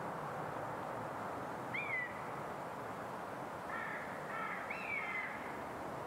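Short animal calls: one call about two seconds in, then a quick run of three or four calls a couple of seconds later, over a steady noisy background.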